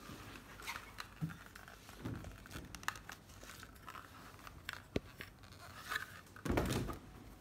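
Rustling and crinkling handling noise as a hoodie is moved about, with scattered light clicks and a louder stretch of rustling near the end.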